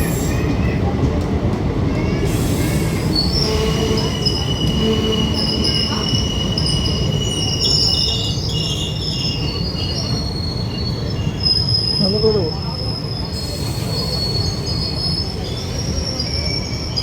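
Passenger train running along the track with a steady low rumble. High, thin wheel squeal comes and goes from about three seconds in.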